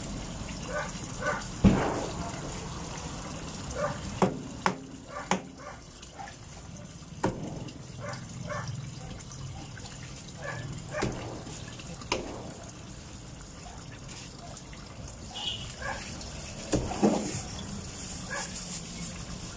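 Kitchen knife slicing a milkfish on a plastic cutting board: irregular knocks as the blade cuts through the fish and strikes the board, the loudest about two seconds in and a cluster near the end.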